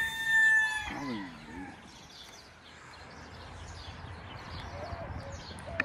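Rooster crowing, the long held end of its crow cutting off about a second in; after that only faint background noise.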